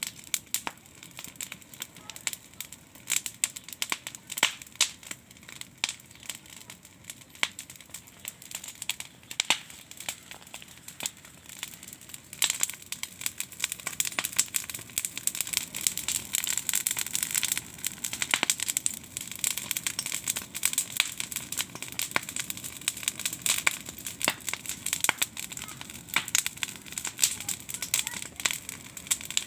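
Campfire of firewood and branches crackling, with many sharp pops and snaps. A steady hiss under the crackle grows louder about twelve seconds in.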